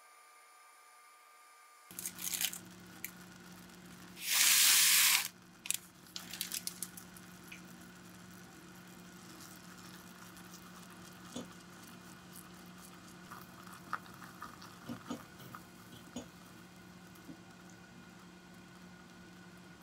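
Baking preparation sounds over a faint steady hum: a few short rustles, a loud noisy rush lasting about a second, then scattered light taps and clicks.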